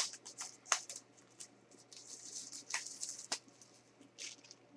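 Cardboard and plastic Blu-ray packaging being handled: a sharp click at the start and another just under a second in, a longer sliding scrape about two to three seconds in, and a few light rustles after it.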